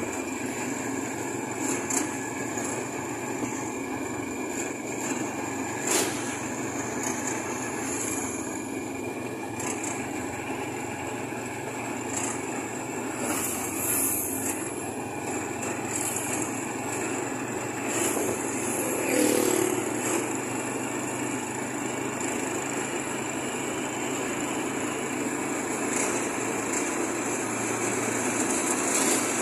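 Steady road and wind noise from riding along a road, with motorcycle and motorcycle-tricycle engines running in the traffic nearby; a motorcycle passes close about halfway through.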